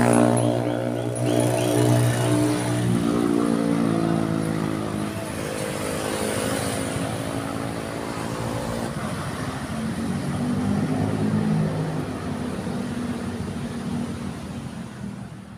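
Motorcycle and car engines in city road traffic, their pitch rising and falling as they pass, over a steady traffic hiss. It is loudest in the first few seconds and fades out near the end.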